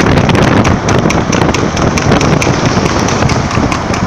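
Harness racing trotters' hooves clattering on tarmac in quick irregular strikes, over the steady rumble and wind noise of the vehicle driving alongside.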